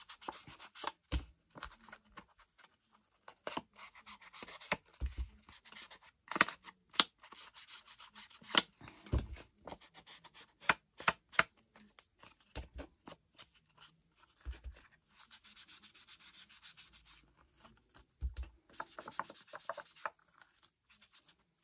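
Foam ink blending tool scrubbed against the edges of a paper journal pocket, a dry rubbing scuff. Scattered sharp clicks and a few dull knocks come from the paper and tool being handled against the cutting mat.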